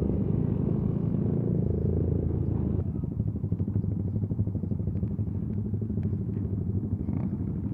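Motorcycle engine running steadily, with an even rapid pulse in its note.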